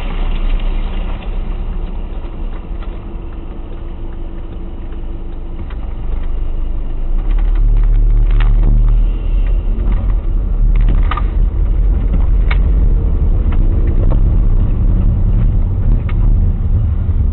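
Car interior noise picked up by a dashcam: a low road and engine rumble as the car brakes to a stop and then rolls off again, growing heavier from about seven seconds in. A few short, sharp clicks sound in the second half.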